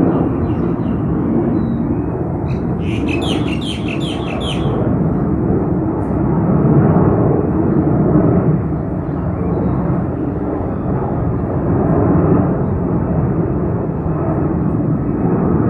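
Steady low rumble of a distant jet airliner, with a bird's quick run of about seven chirps about three seconds in.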